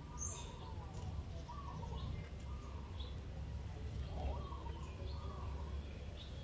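Birds calling in the background, short scattered chirps and coos, over a steady low rumble.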